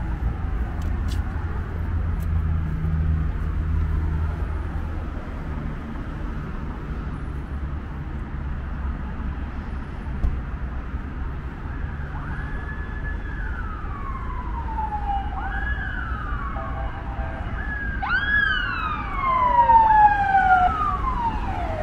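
Emergency vehicle siren starting about halfway through: repeated wails, each jumping up in pitch and then sliding down, loudest near the end. Under it, the steady low rumble of street traffic.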